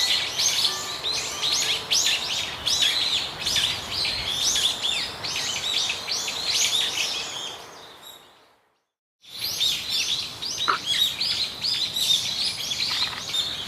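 A dense chorus of small birds chirping rapidly and high-pitched. It fades out about eight seconds in, there is a second of silence, and then the chirping starts again.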